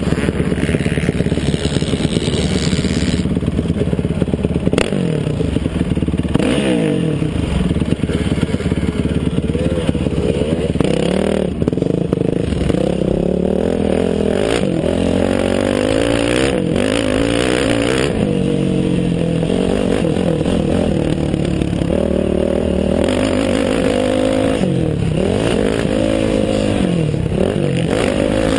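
Dirt bike engine revving up and falling back over and over as the throttle is worked and gears change while riding a motocross track, picked up by a helmet-mounted camera.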